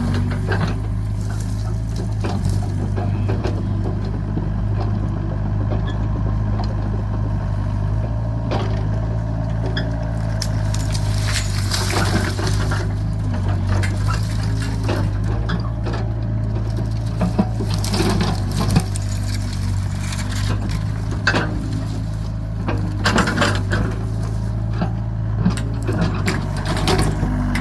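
Excavator's diesel engine running steadily under load, with scattered sharp knocks and cracks from the bucket working the ground, more frequent in the second half.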